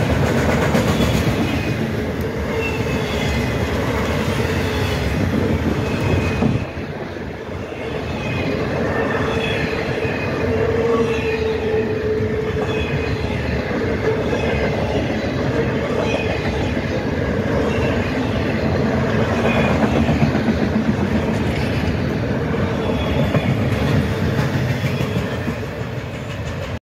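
Freight train of autorack cars rolling past close by: steady rumble of steel wheels on the rails, clacking over rail joints, with faint thin wheel squeal ringing at times.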